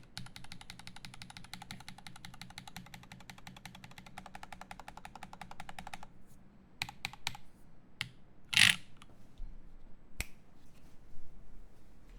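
Typing on a GHS.RAR mechanical keyboard with lubed Zaku switches, aluminium plate and GMK keycaps: a dense, fast run of key clacks that stops about six seconds in. After that come a few scattered keystrokes and one louder knock.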